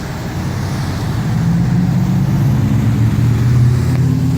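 Motor vehicle engine on the street below, a low rumble growing louder about a second in and holding.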